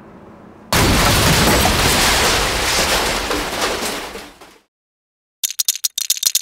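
A low hum, then about a second in a sudden loud explosion as the Razor Crest starship is blown up, dying away over about four seconds. Near the end, a quick run of sharp digital glitch crackles.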